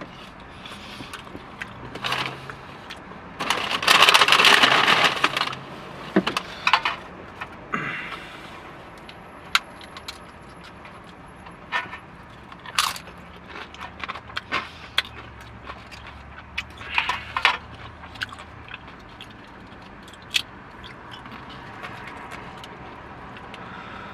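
Eating sounds from a takeout burrito bowl: a fork clicking and scraping in the bowl, and chewing, as sharp scattered clicks and short scrapes. About four seconds in there is a loud stretch of noise lasting about two seconds.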